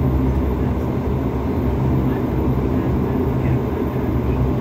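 Steady drone of a De Havilland Q400's twin Pratt & Whitney PW150A turboprops and propellers at taxi power, heard inside the cabin, with a low steady hum running underneath.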